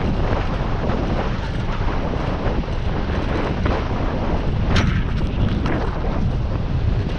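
Wind buffeting an action camera's microphone while riding a mountain bike downhill, a steady loud rush. A few short clicks and rattles come about five seconds in.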